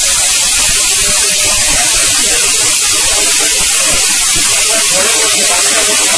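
Orpat 1200-watt mixer grinder running at full speed, grinding parboiled rice into flour in its small stainless-steel dry-grinding jar: a loud, steady whir with a dense hiss of the grains inside the steel jar.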